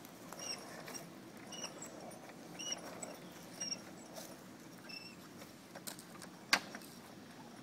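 Doepke Yardbird chain-drive handcar being worked along a small-gauge track, giving a short high squeak about once a second with each stroke, over light clicking from the wheels and rails. A sharp click about six and a half seconds in.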